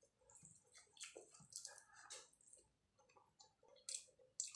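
Faint, wet eating sounds of rice and curry eaten by hand: fingers squishing rice into the gravy on the plate, with soft chewing and lip-smacking clicks. The sounds come as scattered short clicks and squelches, several a second.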